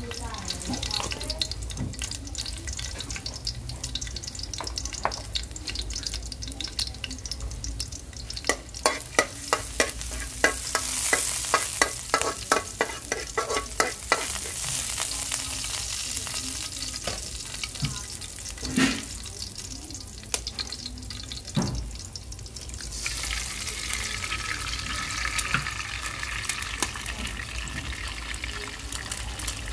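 Minced garlic sizzling in oil in a stainless steel wok, stirred with a metal spatula that scrapes and clinks against the pan, with a quick run of clinks about nine to fourteen seconds in and a couple of louder knocks later. From about two-thirds of the way through the sizzle grows fuller and brighter as duck eggs are cracked into the hot oil.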